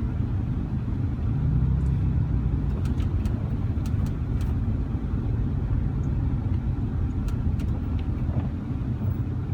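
Car driving, heard as a steady low rumble of engine and road noise from inside, with a few faint ticks scattered through it.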